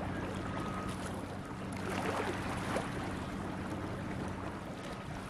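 Small waves washing against a rocky lake shore, with wind, over a steady low hum.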